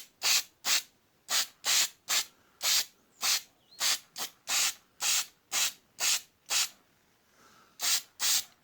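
Aerosol spray-paint can sprayed in short hissing bursts, about two a second, with a pause of about a second near the end of the run.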